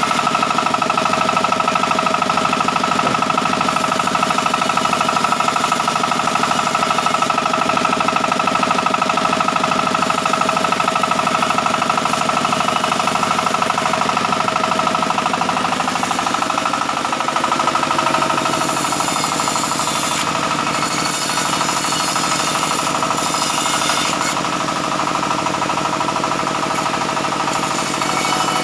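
Sawmill saw running steadily with a constant whine while cutting mahogany timber.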